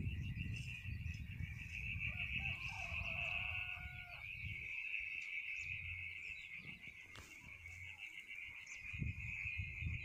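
Steady, high-pitched trilling of an insect chorus, with wind buffeting the microphone in uneven low gusts.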